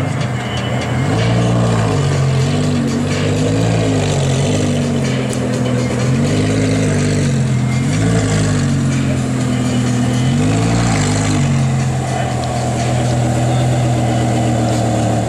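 Lamborghini Gallardo LP560's V10, fitted with an Armytrix valvetronic exhaust, revved repeatedly in short blips while standing still, then settling to a steady idle about twelve seconds in.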